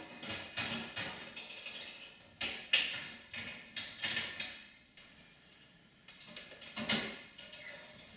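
Metal parts clanking, clicking and scraping as a piece is worked into place inside a Power Mac G4's bare metal chassis by hand: a string of separate knocks, the sharpest about three seconds in and again about seven seconds in.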